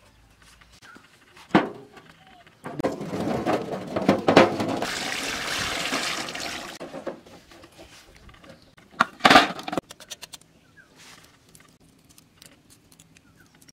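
Water poured from a pot splashing onto eggs in a large metal tray for about four seconds. Later a sharp knock and a run of small crackles as a boiled egg's shell is cracked and peeled.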